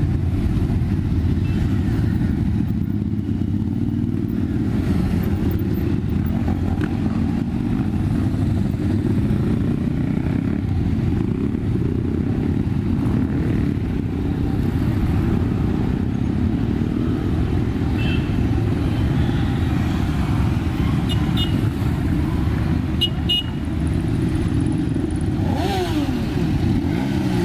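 Motorcycle engines of a large riding group, a steady low drone from many bikes moving together. Near the end an engine note drops in pitch.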